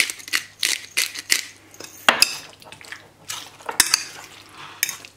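A spoon clinking and scraping against a ceramic bowl as potato salad is stirred, in irregular knocks and scrapes.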